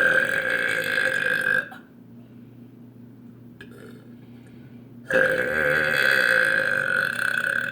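Two long, loud burps, the first lasting under two seconds and the second, from about five seconds in, lasting about two and a half seconds.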